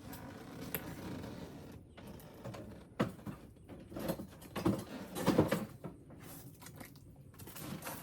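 A few knocks and thumps with rustling, as of things being handled and moved about. The sharpest knock comes about three seconds in, and the loudest thumps come about five seconds in.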